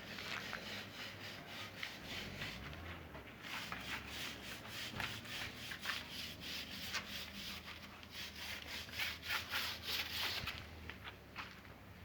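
Hand sanding: quick back-and-forth rubbing strokes, several a second, thinning out near the end.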